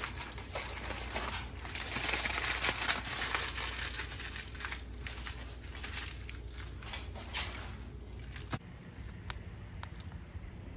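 Aluminium foil crinkling and crackling as hands fold and scrunch foil cooking packets shut, loudest a couple of seconds in, stopping suddenly near the end.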